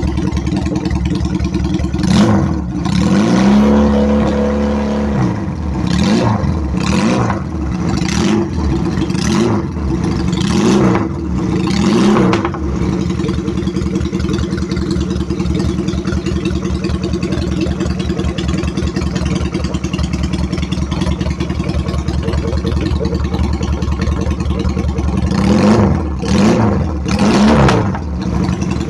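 Benelli PE250 motorcycle engine through a custom exhaust, idling and blipped: a run of quick throttle blips with one rev held for about a second in the first twelve seconds, a long steady idle, then three more quick blips near the end.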